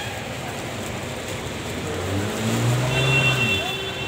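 Street traffic noise, with a vehicle engine swelling louder and fading between about two and three and a half seconds in.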